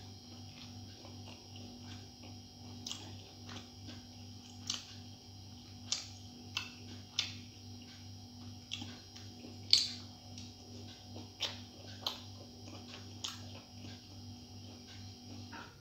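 Mouth sounds of a person eating soft steamed vegetable momos: irregular sharp wet clicks and smacks of chewing, about one a second, over a steady hum.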